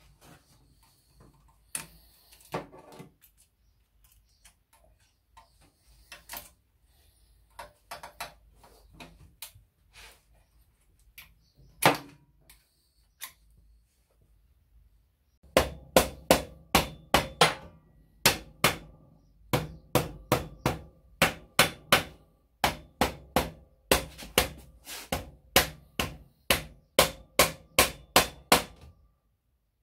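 Rubber mallet striking a stainless 4-into-1 exhaust system, knocking the pipes home at the header-to-collector joint. The strikes come at about two a second, in runs with short pauses, through the second half. Before them there are scattered light metallic clicks and clinks of tools and parts.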